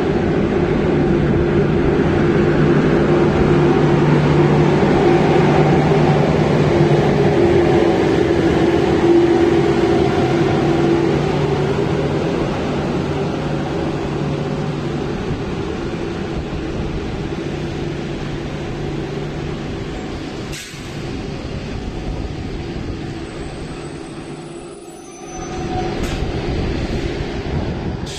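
Class 441 electric locomotive 441-753 rolling slowly past along the platform with a steady electric hum that fades after about fifteen seconds, then its passenger coaches rumbling past over the rails. A sharp click comes about twenty seconds in, and faint high wheel or brake squeals come near the end.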